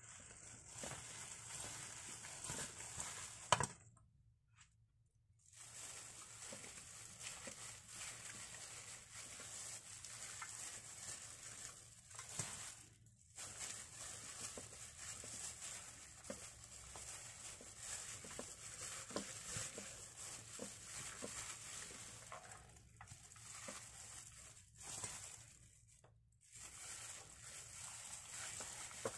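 Plastic-gloved hands mixing a chopped spice mixture in a stainless steel bowl and rubbing it over a raw whole chicken: soft crinkling and squishing with small taps. There is a sharp click about three and a half seconds in, and the sound drops out briefly three times.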